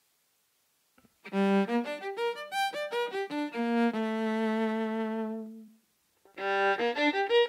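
Recorded solo violin phrase played back over loudspeakers: quick notes ending on a long held low note, played first as the dry sound of a purely electric violin with no sounding body. After a short pause the same phrase starts again, this time through a digital emulation of an acoustic violin's body.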